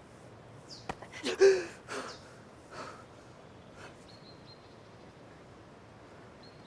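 A man's strained grunt of effort as he heaves a load onto his back, loudest about a second and a half in, after a small click, followed by a few shorter huffing breaths. Brief high bird chirps come in the second half.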